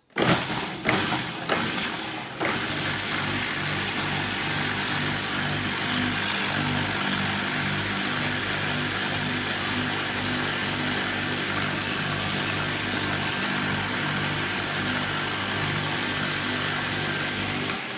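Robot-Coupe Blixer commercial food processor running at full speed, blending beetroot, fruit, chia seeds and almonds into a smoothie. It starts at once and sounds uneven for the first couple of seconds as the chunks are chopped, then settles into a steady motor hum and churn, dropping off at the very end.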